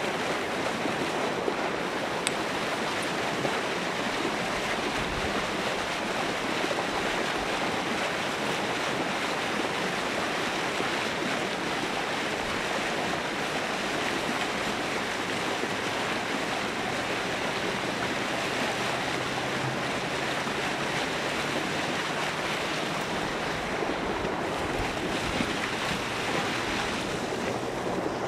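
Steady rushing noise of churning water and wind, even throughout.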